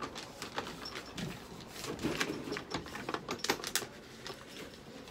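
Plastic clicks and rattles of a pet carrier being unlatched and its top lid lifted open, with a run of quick knocks about two to four seconds in.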